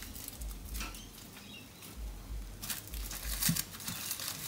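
Aluminium foil crinkling as foil-wrapped potatoes are handled and lifted out of a metal bowl, loudest about three seconds in.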